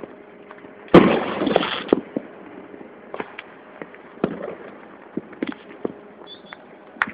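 Fireworks and firecrackers going off: one loud blast about a second in, followed by about a second of dense crackling, then scattered sharp bangs and pops, some near and some distant.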